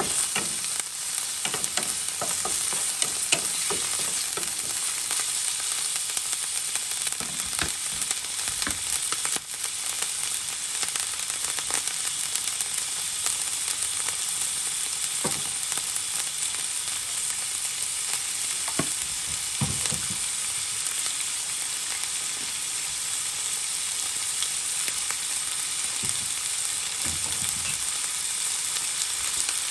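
Sliced meat and chopped garlic sizzling steadily in hot oil in a nonstick frying pan. A wooden spatula stirs and knocks against the pan in the first several seconds, with a few thumps later.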